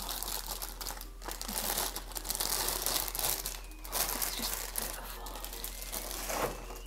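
Thin clear plastic bag crinkling and rustling as it is pulled off a figure, in irregular spells with short pauses.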